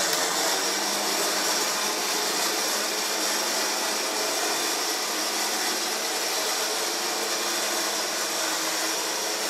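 Warrior Samurai S9500 HS high-speed electric winch running steadily with no load, spooling its synthetic rope: an even motor and gear whir with a high whine.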